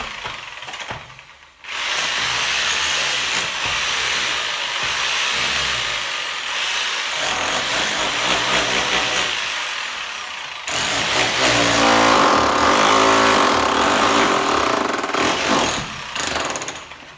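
Power tool running with a loud, rough noise. It cuts out briefly about a second and a half in, then runs on, shifting in pitch about eleven seconds in and dying away at the end.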